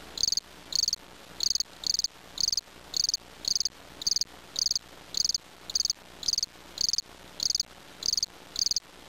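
Crickets chirping: short, high trills repeated evenly about twice a second. This is the stock 'crickets' cue for dull, awkward silence.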